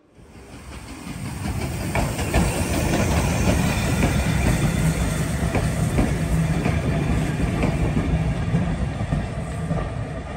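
Steam-hauled train of vintage wooden carriages rolling past close by: the wheels rumble with repeated clicks over the rail joints, along with a hiss. The sound swells up over the first couple of seconds and eases slightly near the end as the train draws away.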